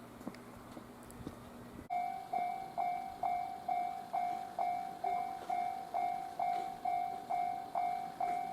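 A low steady hum from a standing train, then, about two seconds in, a railway level-crossing warning bell starts: a single-pitched electronic ding repeated about twice a second, each ding struck and fading.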